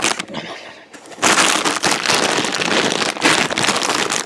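Plastic chip bag crinkling and rustling as a hand rummages inside it. It is quieter for the first second, then loud and continuous.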